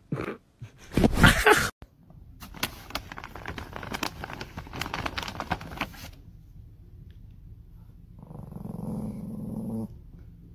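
A small Chihuahua growling low for about a second and a half near the end, a warning growl at a cucumber held in front of it. Before that, a loud burst about a second in and then a few seconds of crackling and clicking.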